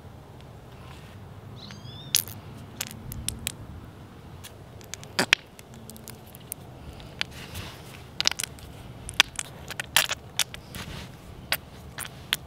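Metal oil paint tubes crinkling and crackling as they are squeezed out onto a palette: an irregular scatter of sharp clicks and crackles.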